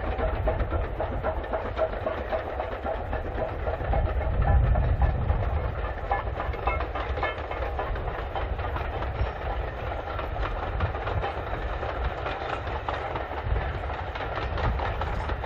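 LMS Stanier Black Five 4-6-0 steam locomotive passing under power with its train: a steady chuffing exhaust and the clatter of wheels on the rails, loudest about four seconds in.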